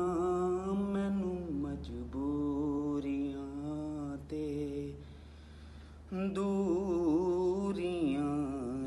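A man singing a Punjabi naat unaccompanied, drawing out long wavering notes without clear words. The voice drops away about five seconds in and comes back a second later. A steady low hum runs underneath.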